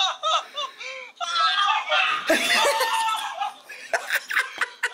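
People laughing hard on a video call, short bursts at first, then loud continuous laughter from about one second in to past three seconds, trailing off into scattered chuckles.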